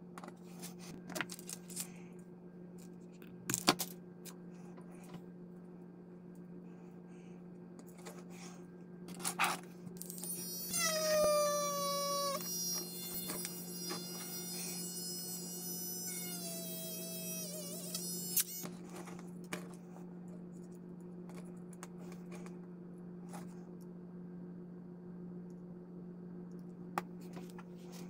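Small cordless pen-style rotary tool whining at high speed as it drills into a plastic model engine, running for about eight seconds from about a third of the way in, with a short break and its pitch dipping as the bit bites. A few sharp handling clicks come before it, over a steady low hum.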